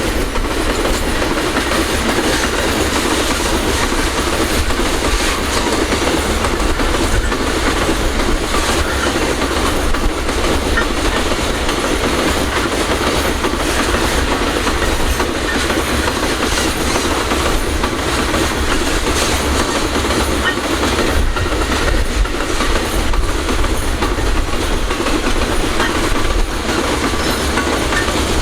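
Freight train rolling past at close range, its wagons clattering steadily over the rails.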